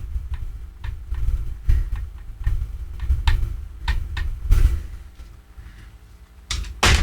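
Handling noise from cleaning a cart tape machine's heads with a cotton swab: irregular small clicks and knocks over a low rumble, with a louder scrape near the end.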